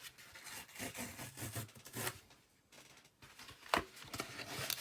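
Small electronics packaging being opened by hand: plastic and paper rustling and tearing, with a sharp click or snap about three and a half seconds in.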